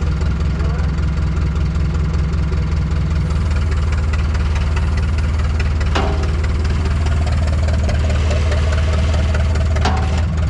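An engine running steadily with a low hum. Its note shifts about three seconds in, and there are two sharp clanks, about six seconds in and again near the end.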